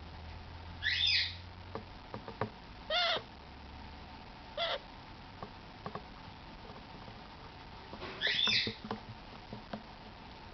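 Red-shouldered macaw chick calling: four short calls with a few seconds between them, the first and last longer and doubled, with faint clicks in between.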